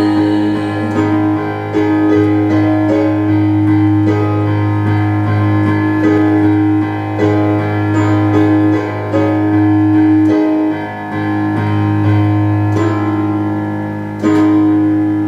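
Piano playing the instrumental close of a song after the vocals end: held chords over a steady bass with short melodic notes, and a last chord struck near the end that begins to die away.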